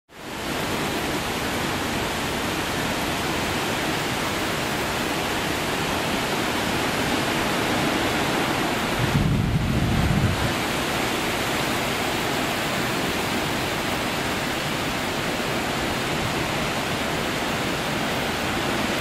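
Steady heavy rush of hurricane rain and wind. A deeper gust buffets the microphone about nine seconds in.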